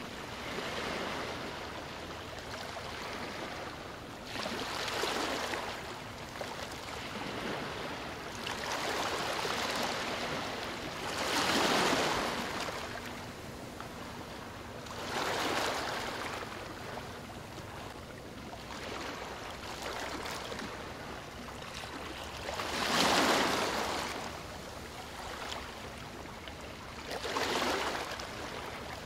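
Small sea waves sloshing and lapping right at the microphone, with a surge of wash every few seconds; the biggest come about twelve and twenty-three seconds in.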